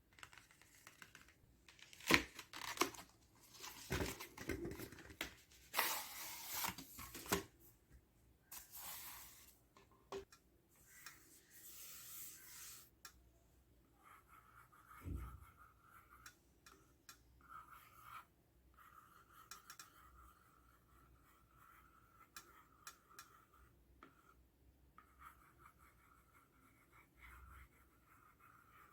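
Packaging of an LCD writing tablet being torn open and handled: loud tearing and rustling for about the first thirteen seconds. After that come quieter, faint scratching and light taps.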